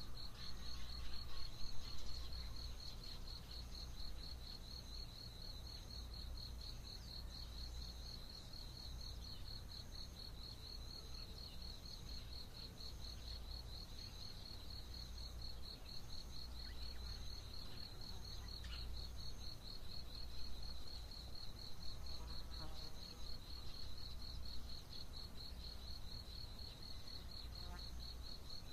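Early-morning insect chorus: one insect trills steadily in a fast, even pulse, while a second, higher insect repeats shorter chirps about once a second. A few faint bird calls come and go over a low rumble.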